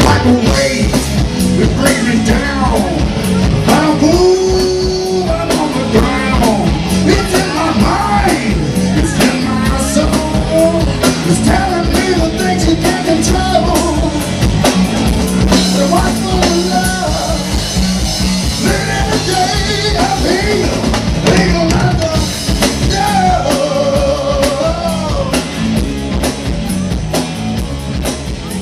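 Rock band playing live: electric guitars, bass and a drum kit keeping a steady beat, with a lead singer's voice over them.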